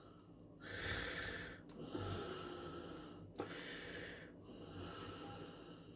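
A person breathing close to the microphone: about five soft, hissing breaths of roughly a second each, with short pauses between them.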